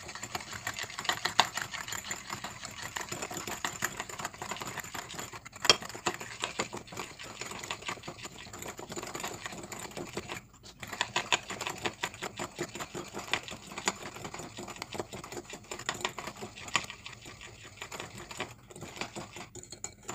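Small wire whisk beating runny egg-and-butter cookie batter in a ceramic bowl, a fast steady clatter of wires tapping the bowl's side. It stops briefly about ten seconds in and twice near the end.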